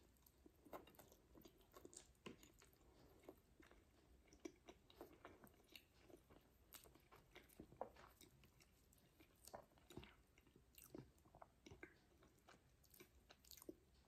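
Faint chewing of a mouthful of spaghetti, soft wet mouth sounds and scattered small clicks, at a very low level.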